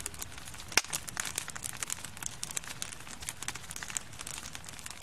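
Wood fire burning and crackling, with a steady patter of small irregular snaps and one sharp, loud pop a little under a second in.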